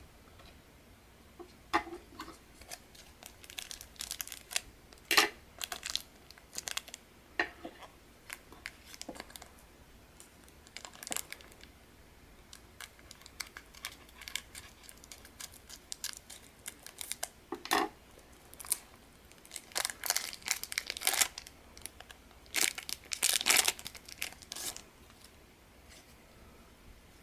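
Foil wrapper of a Pokémon promo card pack crinkling as it is handled and cut open with scissors, in scattered sharp crackles and rustles with short quiet gaps. Near the end, cards and a sticker sheet rustle as they are pulled out and handled.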